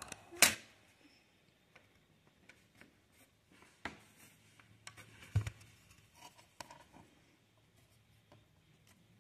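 Small hard-plastic diorama pieces being handled and fitted together by hand: scattered light clicks and taps with faint rubbing of plastic on plastic, the sharpest click about half a second in and a few more around four and five and a half seconds in.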